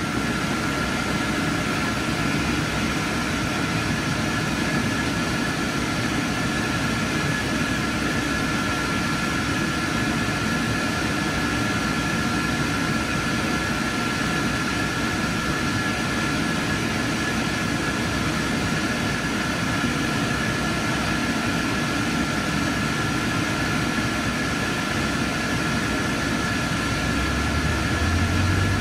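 Steady drone of the ventilation and equipment fans in an IMAX 70mm film projection booth: a broad rushing noise with a high fan whine held on two steady pitches. Near the end a low hum begins to rise.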